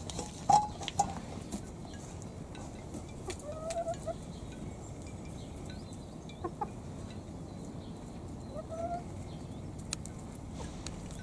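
Chickens clucking, with short, slightly rising calls every few seconds. The loudest is about half a second in.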